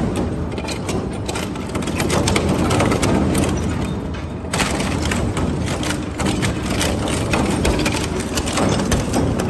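DS46120 twin-shaft shredder with hooked cutters tearing up an aluminium engine casting. Dense, irregular cracking and crunching as the metal breaks apart, over the steady noise of the running rotors.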